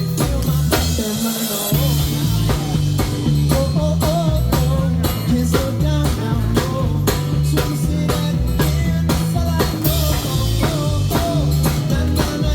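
Live band music in an instrumental passage, with a drum kit keeping a steady beat over a bass line. There are cymbal washes about a second in and again near the end.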